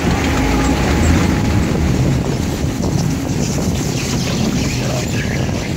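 Log flume boat sliding down the chute and running through the water channel: steady rushing water with a low rumble, and wind buffeting the microphone.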